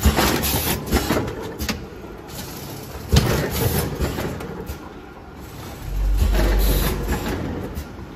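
Vertical form-fill-seal packing machine with an auger filler running through its bagging cycle. It gives sharp mechanical clicks and knocks with short air hisses. A loud low motor drone sets in about six seconds in and eases off a second and a half later.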